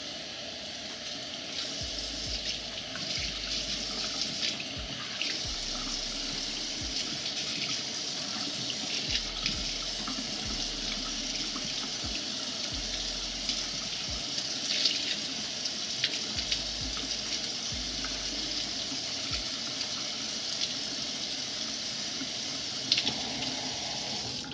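Kitchen faucet running steadily, the stream pouring over wet hair and splashing into the sink, with scattered small splashes.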